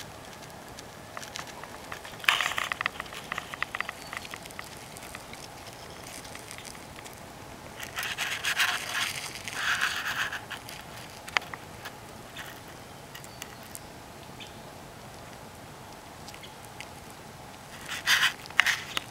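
Intermittent rustling and crackling, in three short spells about two, eight and eighteen seconds in, with scattered clicks over a steady low hiss.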